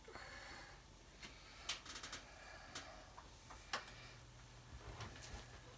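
Cereal-crusted French toast frying in butter in a nonstick skillet: a faint sizzle with a few scattered, irregular sharp pops and crackles.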